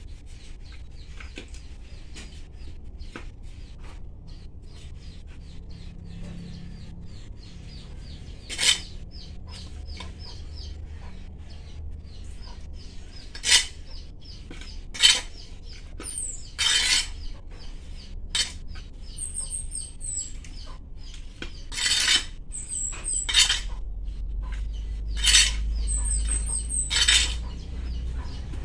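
Hand trowel scooping potting soil in a clay pot, with several sharp clinks as it strikes the pot, most of them in the second half. Small birds chirp in a quick repeated series underneath, with short high calls later on.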